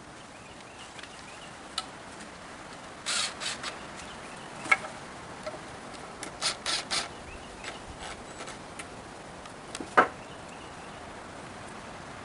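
Pressure-treated pine timbers being handled and fitted: a few short wood-on-wood scrapes and a couple of sharp knocks, the loudest about ten seconds in.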